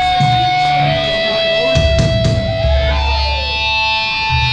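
Metalcore band playing live through a club PA: distorted guitars holding long sustained notes over heavy bass, with drum and cymbal hits.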